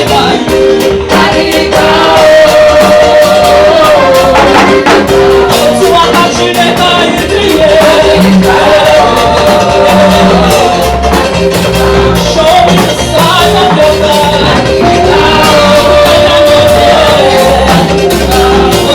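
Upbeat African gospel praise music: a singer's voice over a steady, fast percussion beat.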